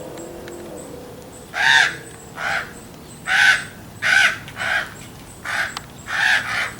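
Common ravens calling: about eight short calls, starting a second and a half in, some coming in quick pairs.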